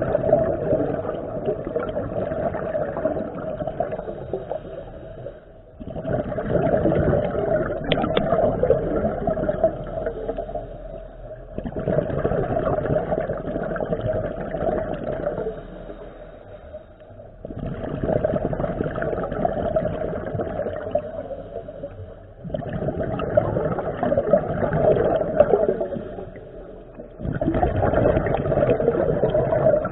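A scuba diver breathing out through a regulator underwater: bursts of rising exhaust bubbles gurgling about every five to six seconds. Each burst starts suddenly and fades over about four seconds, with short quieter pauses between.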